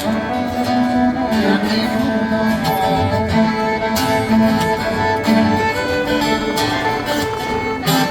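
Instrumental break in a rock song between sung verses: the band plays on without vocals.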